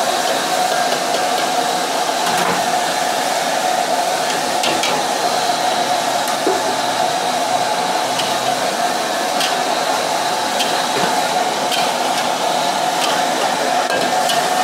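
Steady roar of a gas wok burner on full flame with food sizzling in the wok, and scattered light clicks of a metal spatula against the wok.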